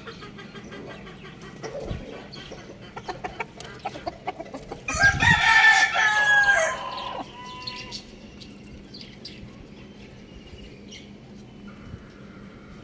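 A rooster crows once, about five seconds in, a loud call lasting about two seconds. Before and after it a hen clucks more quietly.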